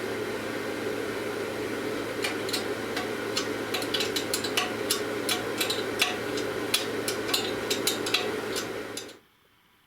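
An electric workshop machine running with a steady hum, overlaid with irregular sharp ticks and crackles, then shutting off abruptly about nine seconds in.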